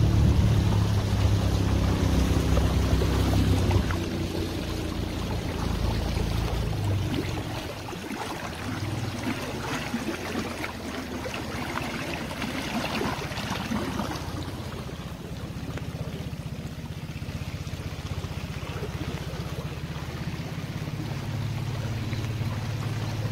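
Tiller-steered outboard motor of a river boat running, loudest for the first four seconds and then carrying on at a lower hum, with heavy rain pattering on the river surface.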